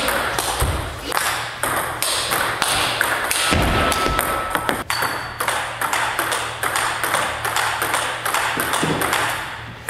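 Table tennis rally: the ball cracking off the rubber-faced bats in topspin drives and bouncing on the table, a quick uneven series of sharp clicks.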